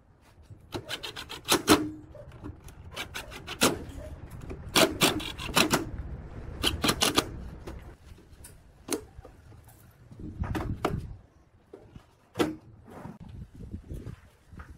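Plywood tabletop panels sliding and knocking on a steel square-tube folding table frame: a scraping rub broken by groups of sharp clacks and a few duller knocks.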